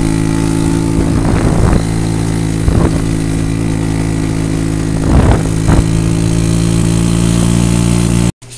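Small go-kart engine running at a steady speed, with a few brief knocks along the way. The sound cuts off suddenly near the end.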